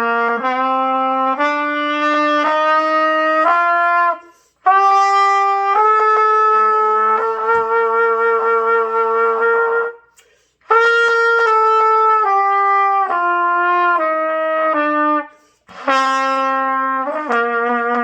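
Trumpet playing a stepwise scale: about five notes rising one after another, a long held high note, then the notes stepping back down, and a new climb starting near the end.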